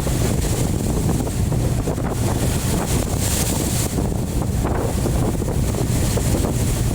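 Heavy wind buffeting the microphone over the rush of rough sea and waves against a ship, with a surge of hiss about three seconds in.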